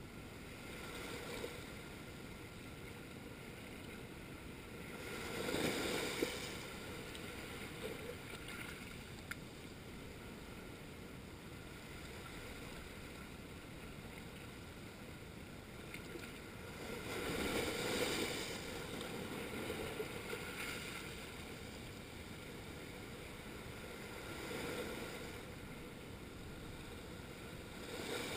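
Small waves washing in over a rocky shoreline, with a steady wash of surf between surges. Several waves swell in and drain away, the loudest about six and eighteen seconds in.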